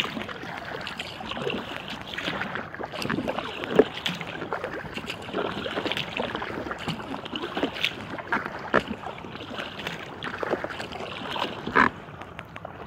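Inflatable kayak being paddled on a lake: water splashing and dripping from the paddle strokes and lapping at the hull. The splashes come irregularly, with no steady beat.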